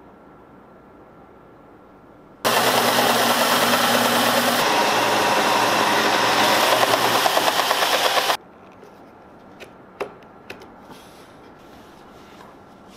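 Bench belt sander running as a walnut strip is pressed against the belt, a loud even grinding hiss over a steady motor hum that lasts about six seconds and starts and stops abruptly. A few light knocks follow.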